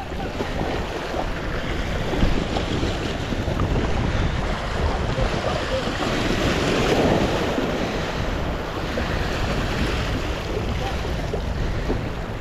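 Sea waves washing over a rock ledge at the water's edge, with wind buffeting the microphone: a steady, even wash of noise.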